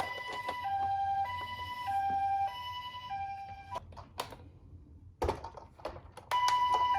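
Toy ambulance minicar's electronic hi-lo siren, two tones alternating about every half second. It fades and stops about halfway through, giving way to a few sharp plastic clicks and knocks, then starts again loudly near the end.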